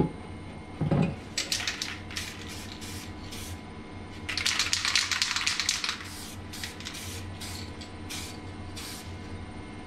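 Aerosol can of guide coat spraying onto a panel: several short hissing bursts, one longer spray of about a second and a half near the middle, then more short bursts. A low knock comes about a second in.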